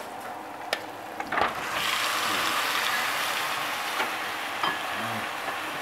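Marinated thin beef slices tipped from a plastic container into a hot wok of sautéed garlic and onion: a couple of knocks, then a steady, loud sizzle and crackle of the meat and marinade hitting the hot oil from about two seconds in.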